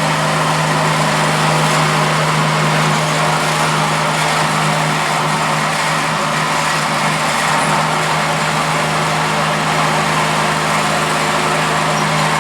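A large engine running steadily at a constant speed, with a strong, unchanging low hum.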